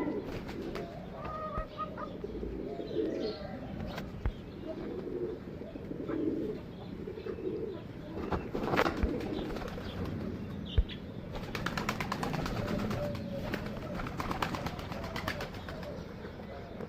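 Pigeons cooing in low, repeated coos, with a flurry of wing flaps in the second half.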